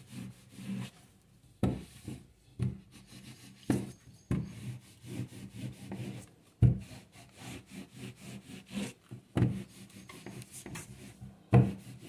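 Electric dry iron pushed back and forth over cotton fabric on a padded surface, its soleplate scraping across the cloth with irregular dull knocks as it is pressed down and shifted to fuse interfacing onto a neckline.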